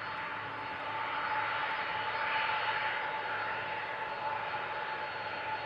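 Jet engines of a Boeing 747-400 freighter during its landing roll-out: a steady rushing jet noise with a held whining tone, swelling about one to three seconds in and then easing a little.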